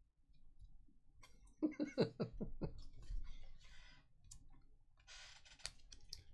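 Trading card packs and cards being handled: a quick run of five or six taps about a second and a half in, then scraping and crinkling of cards and pack wrappers, with a sharp click near the end.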